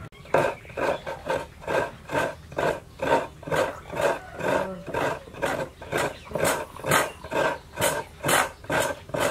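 A coconut half scraped against a coconut grater, a steady run of rasping strokes at about two a second as the flesh is shredded.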